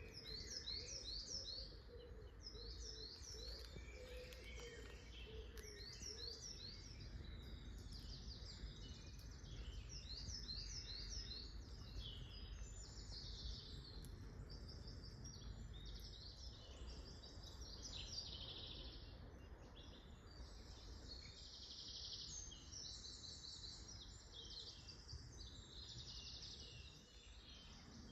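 Several woodland songbirds singing at once, their songs overlapping continuously, over a faint low rumble.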